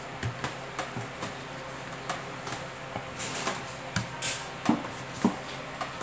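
Hands kneading a yeast bread dough in a plastic bowl: irregular soft knocks and thumps as the dough is pressed and the bowl shifts on the table, with two louder knocks about five seconds in.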